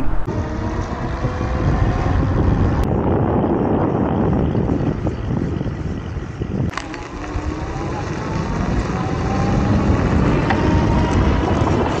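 Wind buffeting the microphone and fat tyres running on asphalt as a 750 W electric bike rides along, with a faint whine from its brushless motor that rises in pitch at times.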